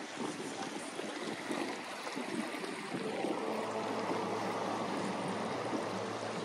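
Outdoor ambient rush, like wind or water, with a low steady engine hum coming in about three seconds in.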